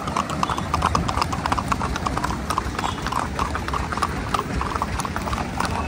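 Hooves of a group of Marwari horses clip-clopping, many hoofbeats overlapping.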